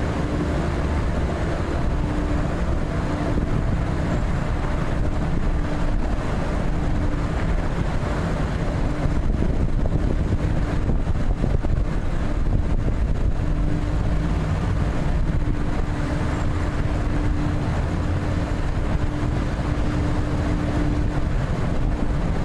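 Steady traffic noise from a busy freeway, with a faint steady hum that drops in and out.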